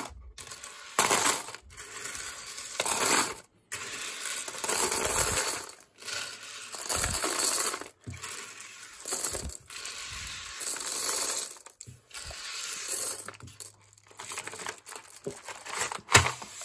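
Loose plastic LEGO 1x4 tiles swept by hand off a tabletop into a cardboard box, clattering in short bursts about every two seconds as each handful falls in, with quieter shuffling of pieces between.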